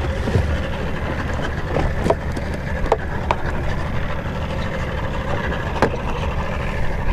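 Steady low rumble of wind and water around a small boat at sea, with a few short sharp clicks and knocks as a small fish is reeled up and swung aboard onto the deck.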